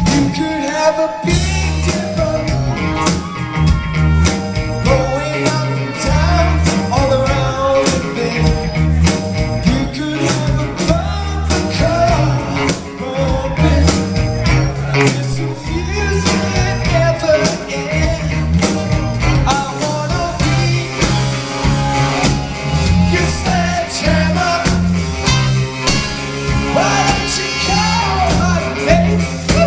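Rock music with singing and guitar.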